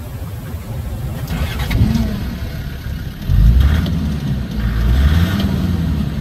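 Land Rover Defender engine running and revving under load while the vehicle drives through flood water, with water splashing and spraying. The engine gets louder about three seconds in.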